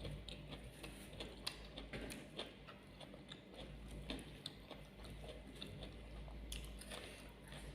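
A person chewing and biting food close to the microphone, with many irregular small clicks of wet mouth sounds.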